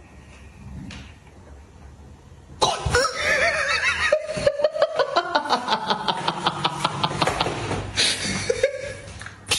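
After a quiet start, a loud wavering squeal about three seconds in, then a high cackling laugh: a fast run of about six pulses a second, slowly falling in pitch, that breaks off about eight seconds in.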